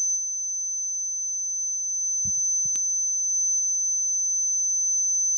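A steady high-pitched electronic whine from the church sound system, a fault the preacher traces to his handheld wireless microphone, with a faint low hum beneath it. Two soft knocks about two and a half seconds in, as the microphone is handled.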